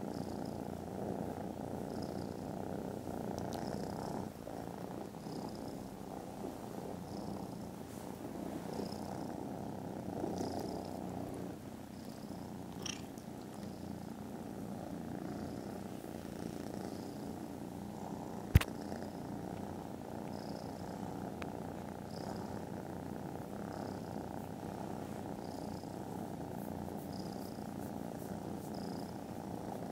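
Kittens purring steadily and close up, with a faint pulse about once a second. A single sharp click stands out about two-thirds of the way through.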